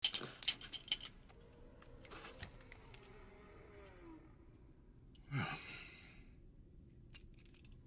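Metal cartridges clicking against each other as they are handled in a palm: a quick run of clicks at the start and a few lighter ones near the end. About five seconds in, a man lets out a heavy sigh that falls in pitch.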